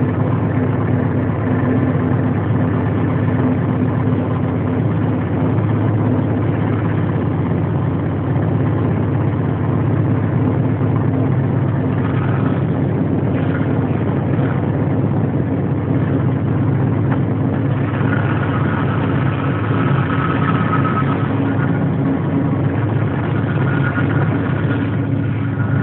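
Diesel locomotive engine running steadily, heard from inside the cab of the moving train, with a constant low hum over the noise of the run.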